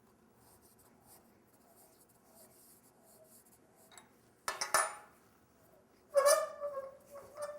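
Metal parts of a lathe chuck being handled: a sharp clack about halfway through, then clinks with a short ringing metallic tone near the end.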